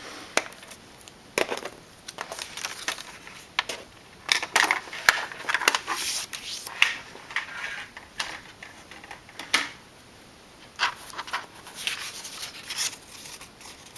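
Cardstock being handled and folded on a work surface: irregular scrapes, rubs and light taps, busiest in the middle and again near the end.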